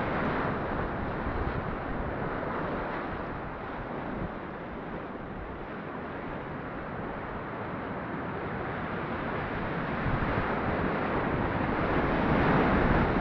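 Whitewater rapids rushing close around a kayak, with water and wind buffeting the microphone. The rush eases a little midway and grows louder near the end as the boat runs into bigger waves.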